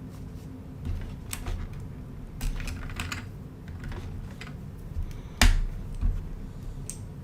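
Plastic Lego pieces clicking and tapping as they are handled and pressed together, in irregular scattered clicks, with one louder click about five and a half seconds in.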